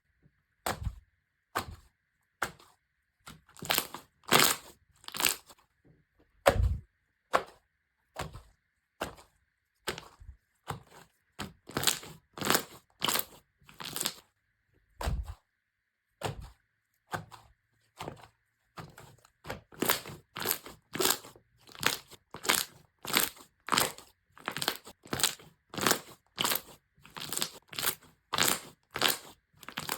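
Slime being squished and pressed, a series of short crunchy sounds: scattered and irregular at first, then about two a second from around twenty seconds in.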